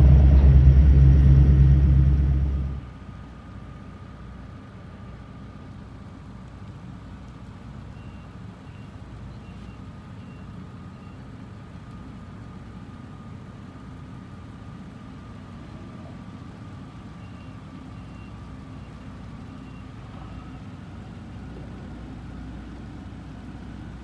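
Loud steady rumble of a boat engine that cuts off suddenly about three seconds in. It gives way to a much fainter, steady low engine drone as a fishing tender boat moves slowly toward the dock.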